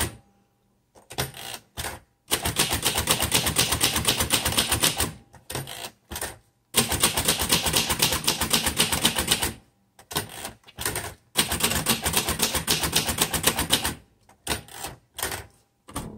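1962 Royal Custom manual typewriter being typed on: quick runs of key and typebar strikes lasting a few seconds each, broken by short pauses.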